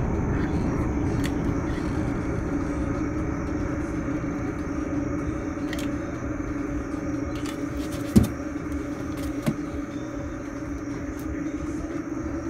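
Steady low machine hum, with a sharp knock about eight seconds in and a fainter one a second and a half later.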